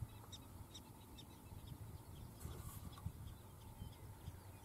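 Repeated short, high chirps, about two a second, from a small animal over a low rumble of wind.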